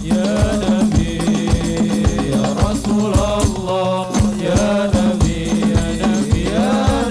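Sholawat: several men chant-singing through a PA system over a steady beat of rebana frame drums, with a steady low tone underneath.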